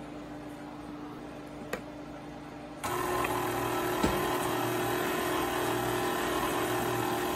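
KitchenAid K45SS stand mixer switched on about three seconds in, its motor whirring steadily as the flat beater mashes boiled potatoes in the steel bowl. There is a single knock about a second after it starts.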